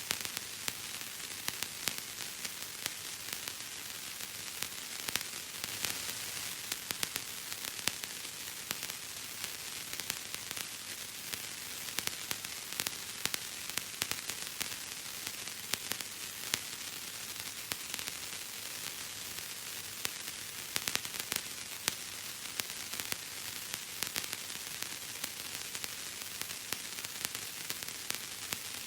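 Bubble wrap popping: a dense, irregular crackle of many small pops over a steady hiss.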